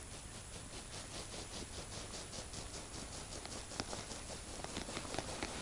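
Faint rapid ticking, about five or six ticks a second, from a small hand-held winter jigging rod as the bait-free mormyshka is twitched in the ice hole, with a couple of sharper clicks in the second half.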